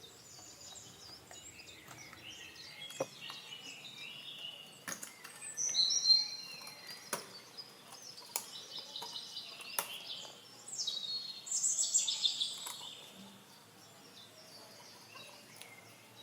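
Small birds chirping and twittering in quick, varied phrases, loudest about six seconds in and again a few seconds before the end. A few sharp clicks fall among the chirps.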